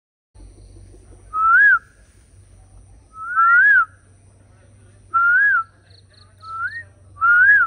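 Indian peafowl (peacock) calling: a series of five loud, rising-and-falling notes about two seconds apart.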